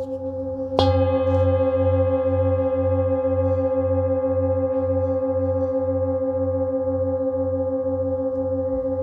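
Singing bowl struck once about a second in, then ringing on with a long, slowly fading tone over a steady, wavering throb of beats.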